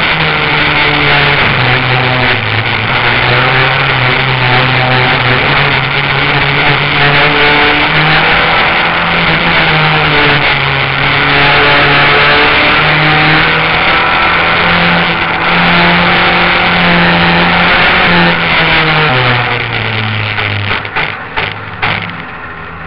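Race car engine heard from on board, running hard at racing speed, its pitch rising and falling with the throttle through the corners. Near the end the engine note drops and the sound turns quieter and uneven as the car slows.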